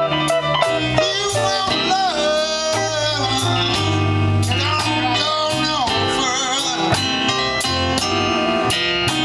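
A live blues band playing: drums keep a steady beat under electric bass, keyboard and electric guitar. A lead line of long, bending notes runs through the middle.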